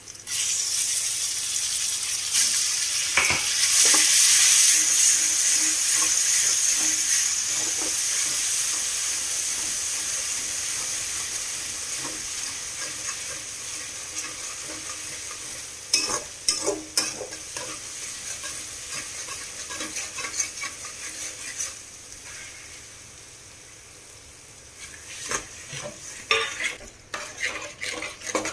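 Chopped onions frying in hot oil in an aluminium kadai, sizzling loudly at first and slowly dying down. A steel spatula stirs and scrapes against the pan, with sharper bursts of scraping about halfway through and again near the end.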